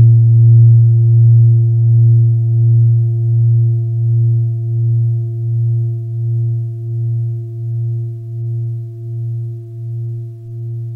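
A singing bowl ringing after a strike just at the start: a deep hum with a few fainter higher overtones, pulsing in loudness about three times every two seconds as it slowly fades.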